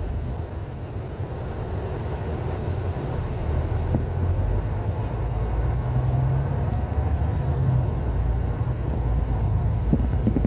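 Bus engine and cabin rumble heard from inside a bus as it pulls away from a stop and gathers speed, the low engine note stepping up through the gears.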